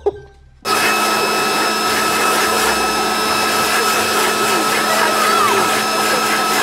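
Leaf blower running steadily with a constant motor whine and the rush of air, starting abruptly about half a second in.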